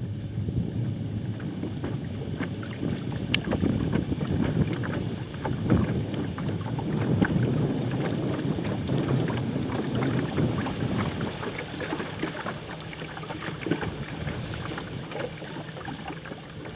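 Wind buffeting the microphone over choppy water lapping and slapping against a small boat's hull, an uneven rumble with scattered small splashes.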